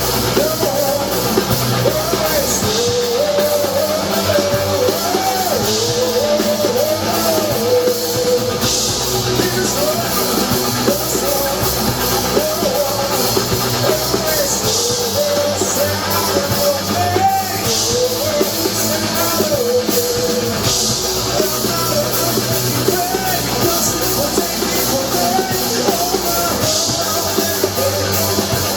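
Rock band playing live: a singer's voice carrying a melody over a drum kit and band.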